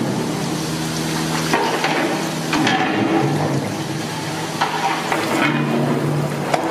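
Long metal ladle stirring a milk and bread mixture in a large aluminium pot, with several sharp scrapes and knocks of metal on the pot, over a steady noisy background.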